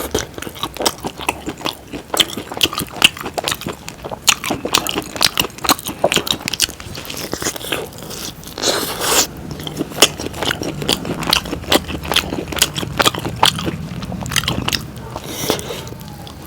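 A person eating chicken curry with puri close to the microphone: chewing and biting, with many sharp, irregular crunching clicks.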